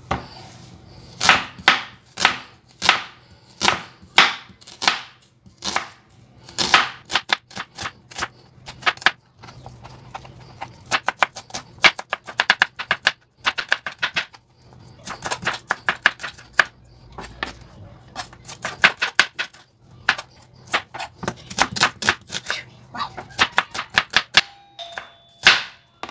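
Chef's knife chopping a red onion on a plastic cutting board: quick runs of sharp knife strikes against the board, broken by short pauses.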